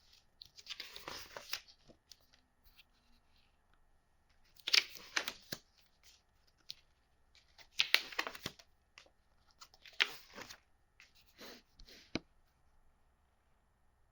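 Board-game packaging being handled and torn open: about five separate bursts of crinkling, tearing noise a few seconds apart, with a sharp click near the end.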